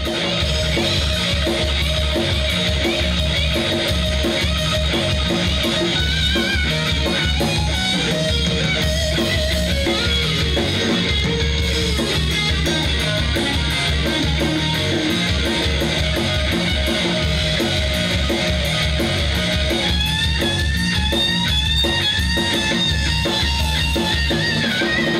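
Blues-rock trio playing live: electric guitar over bass guitar and drum kit, with a steady pulsing bass line. In the last few seconds a lead line bends and wavers in pitch.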